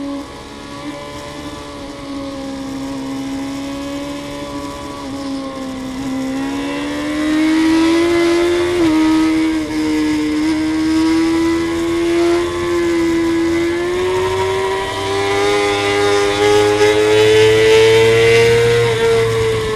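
Suzuki GSX-R inline-four sport bike engine heard from onboard, running at high revs under hard acceleration. Its note climbs slowly with a short dip about nine seconds in, and wind rush grows louder as speed builds.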